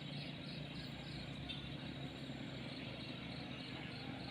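Rural outdoor ambience: insects chirping in an even rhythm of about three pulses a second over a faint, low, steady rumble.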